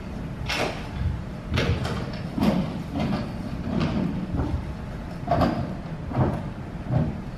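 Irregular knocks and scrapes, about eight in all, of chairs and props being handled on a stage as actors settle at their desks.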